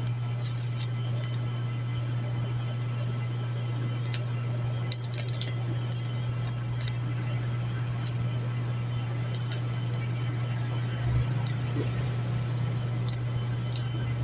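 A steady low hum runs throughout, with sparse, faint clicks and crinkles of plastic packaging being handled, a few of them around the middle and near the end.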